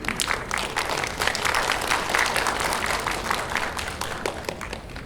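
Audience applauding, the clapping swelling early and thinning toward the end.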